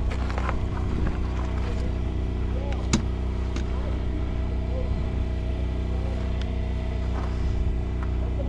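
A steady, low, engine-like hum with a few short sharp clicks, the strongest about three seconds in.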